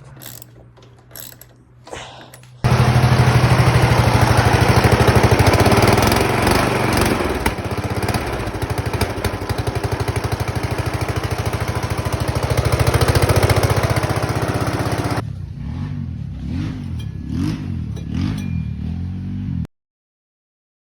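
A blown-up lawn tractor engine with its spark plug removed, spun over by its electric starter: a loud, fast, even cranking with mechanical clatter, turning freely without compression. About twelve seconds in it becomes quieter and uneven, and it stops abruptly about a second before the end.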